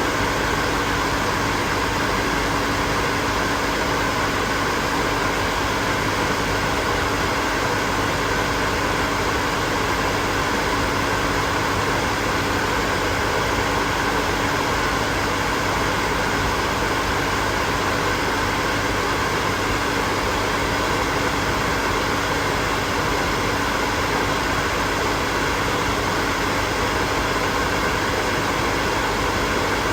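Hair dryer running steadily: an even rush of blown air with a steady motor hum, unchanging throughout.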